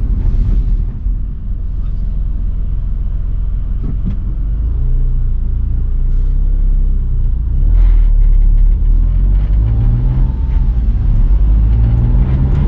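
Smart ForTwo 450's small rear-mounted three-cylinder turbo petrol engine, heard from inside the cabin, accelerating: its note rises several times and drops back between rises as it goes up through the gears, over steady road and tyre noise.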